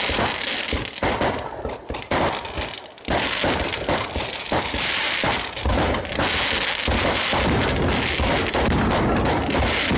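Fireworks going off in a dense, continuous barrage of rapid crackles and bangs, which thins briefly about three seconds in and then runs on unbroken.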